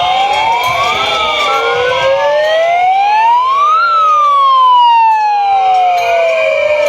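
Several sirens wailing at once, their pitches overlapping as they rise and fall. The loudest climbs to a peak about four seconds in, then slides slowly back down.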